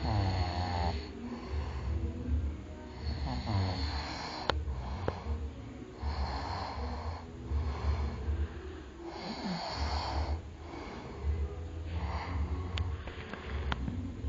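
A person snoring, one snore after another at uneven intervals of one to a few seconds.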